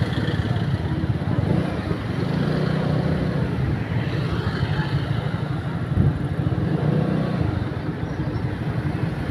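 Small motorbike engine running steadily, with road noise from riding on a street. A brief bump about six seconds in.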